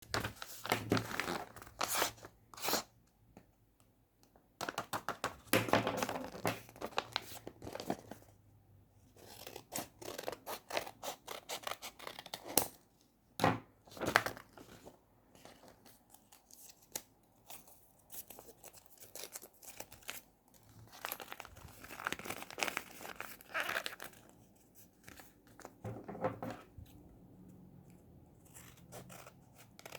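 Paper being torn open and crinkled by hand, coming in irregular bursts of sharp rustles and snaps with short pauses between them.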